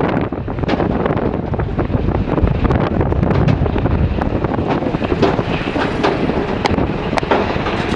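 JCB 3DX backhoe loader's diesel engine running under load, with wind buffeting the microphone and frequent short knocks and clatter over it.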